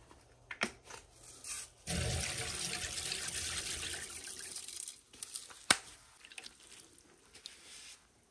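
Water splashing into a tub for about three seconds, stirring up pink cleaning powder, with a few drips before it. After a sharp click it settles to faint trickles and drips.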